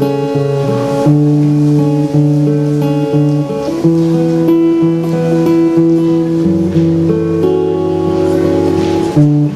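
Acoustic guitar playing chords, each held about a second before changing, with no voice.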